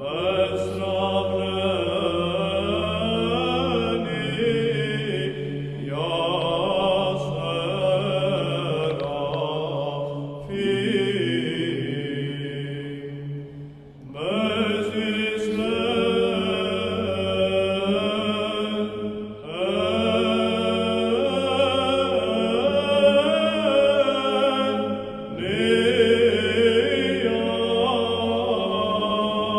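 Orthodox church chant: voices singing slow phrases over a held low drone, with short breaks between phrases, one about halfway through.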